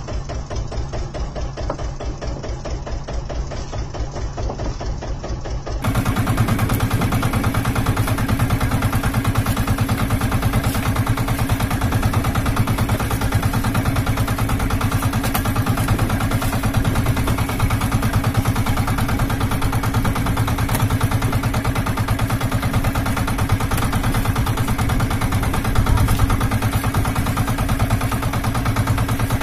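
Outrigger fishing boat's engine running with a steady, rapid pulsing beat; it turns suddenly louder about six seconds in and holds there.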